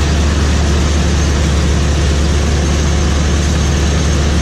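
John Deere 3300 combine running steadily while harvesting wheat: a constant, deep engine drone under a dense, even machinery noise.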